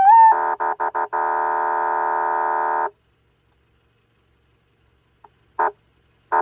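Electronic police siren: a wail tone rising in pitch switches into a steady electronic horn tone, sounded as three quick blasts and then held for about two seconds before it cuts off. After a pause, a few short electronic blips near the end.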